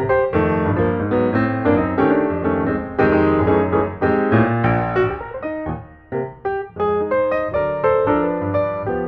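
Background piano music, a steady flow of quick notes that softens briefly about six seconds in.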